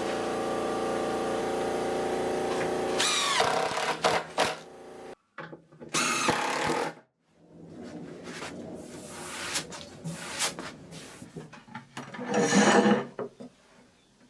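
Power drill driving screws into a plywood cabinet box: a steady motor whine for about three seconds that then winds down, followed by clicks, another short run and several scattered shorter bursts of shop work.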